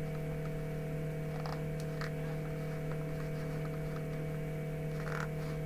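Steady electrical mains hum, with a few faint short handling noises about a second and a half in, at two seconds and near the end.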